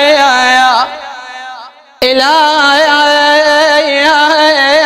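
Male chanter singing long, ornamented held notes in Iraqi style with echo on the voice. The first note breaks off just under a second in and fades away. A new held note starts suddenly about two seconds in.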